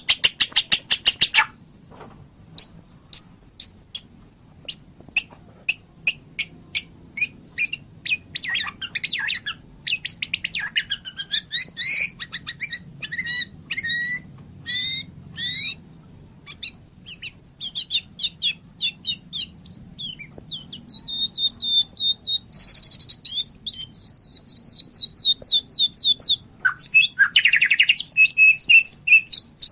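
White-rumped shama singing: a fast rattling trill, then a run of sharp ticks and varied clear whistled phrases, building into rapid trilled phrases near the end.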